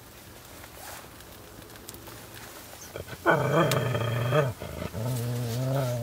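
A dog growling in two long, pitched growls: the first begins about halfway through, and the second starts near the end and runs on.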